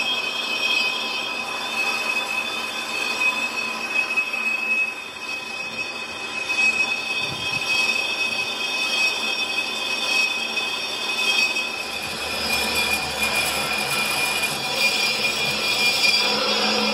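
Lathe turning a truck brake drum, the boring tool cutting the inside of the drum with a steady high-pitched whine over the machine's running noise.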